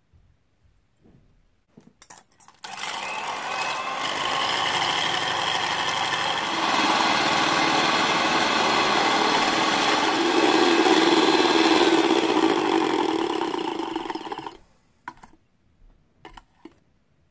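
Electric hand mixer whipping egg whites in a stainless steel bowl, running steadily for about twelve seconds, getting louder partway through, then switched off abruptly once the whites hold stiff peaks. A few light clicks and taps come before it starts and after it stops.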